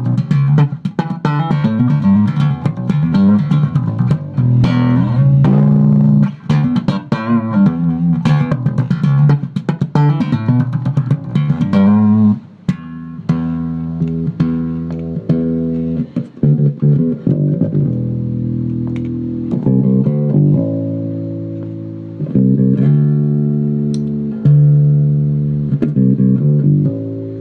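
Jazz bass with Bartolini 9J1 pickups played slap-style through a passive tone filter: quick thumped and popped notes with sharp clicks for about the first half, then slower held low notes with less brightness.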